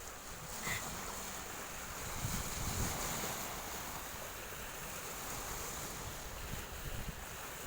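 Sea waves washing steadily, with wind buffeting the microphone in a few low rumbles.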